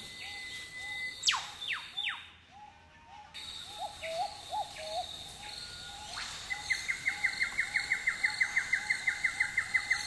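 Rainforest birds calling over a steady high insect drone: a long whistle ending in a sharp, sweeping whip-crack call about a second in, answered by two shorter sweeps, with short repeated calls throughout. From about six and a half seconds a loud, fast run of bright ticking notes, about five a second, follows.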